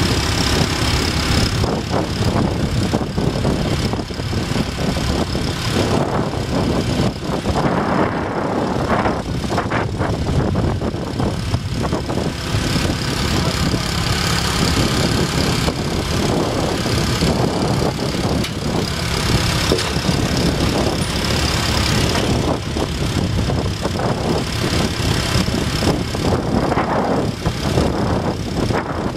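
Petrol engine of an AL-Lift Dynamic 1000 vacuum lifter running steadily at an even speed, driving the lifter's vacuum pump.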